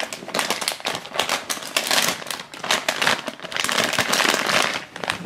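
Foil blind-bag packet crinkling in the hands as it is worked open, a dense run of crackles that comes and goes.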